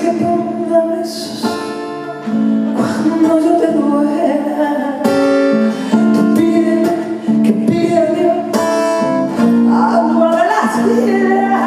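Live music: a woman singing a song with strummed acoustic guitar accompaniment.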